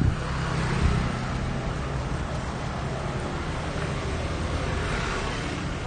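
Street traffic noise: a steady road rumble and hiss that swells as vehicles pass, with a couple of low thumps near the start.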